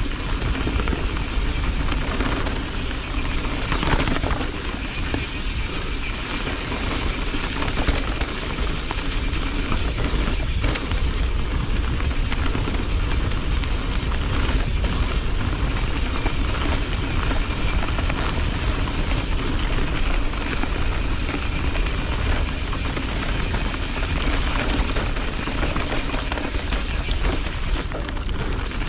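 Canyon Strive enduro mountain bike descending a dirt trail at speed: constant wind rush and low buffeting on the action camera's microphone, mixed with tyres rolling over dirt and dry leaves and the rattle of the bike over bumps, with a couple of sharper knocks about four and ten seconds in.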